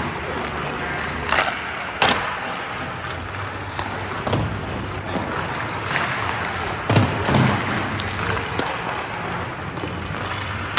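Hockey skate blades scraping and carving on rink ice, with several sharp knocks scattered through, over steady rink background noise.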